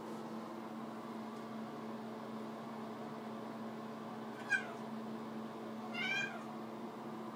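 Domestic cat meowing twice: a short meow about halfway through, then a longer one near the end that rises and falls in pitch.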